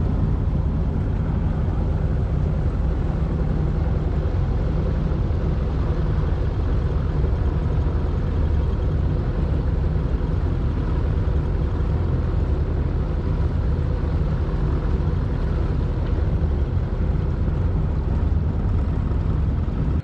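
Bass boat's outboard motor running steadily under way, a loud even drone with a rush of wind and water noise over it.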